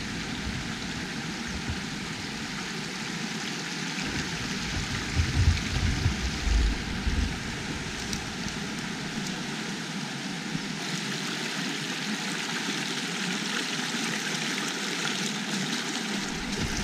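Shallow river running fast over rocks, a steady rushing and babbling of water. A few low rumbles come and go in the first half.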